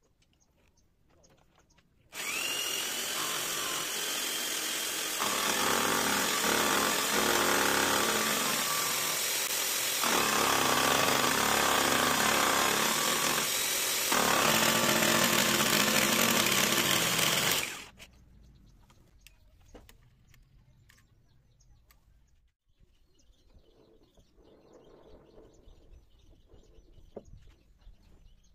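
An electric power-tool motor spins a small cutter held in a drill chuck on the lathe's tool post, milling the metal workpiece. It starts with a short rising whine about two seconds in, gets louder in steps as it cuts, and stops abruptly after about sixteen seconds.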